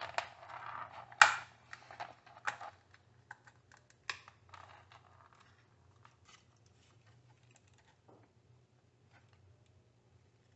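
Casing of a Walita mixer being pried open by hand: a quick run of clicks and scrapes, the loudest sharp snap a little over a second in, then scattered small clicks as the parts come apart.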